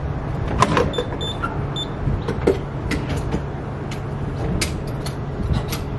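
Gas pump keypad beeping three times in quick succession as a PIN is entered, amid sharp clicks and knocks of handling, over a steady low hum.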